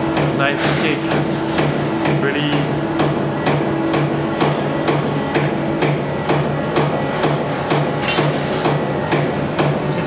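Traditional vertical champagne press's mechanism clicking steadily, about three sharp clicks a second, over a low pulsing hum, while the press is working.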